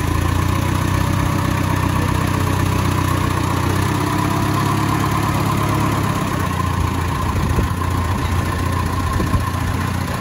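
Early 1900s brass-era touring car's engine running steadily at a slow idle; its low note weakens about six seconds in.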